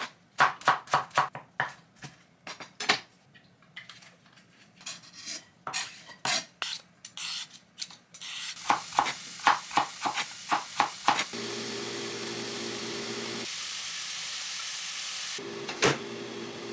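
Kitchen knife chopping green onion on a wooden cutting board in fast, even taps, then sparser cuts and snips. From about halfway through, food sizzles in a frying pan while a spatula clinks and stirs against it, with a steady low hum cutting in and out.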